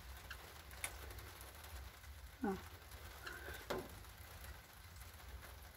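Faint, steady patter of rain, with a few soft clicks and a short falling squeak about halfway through.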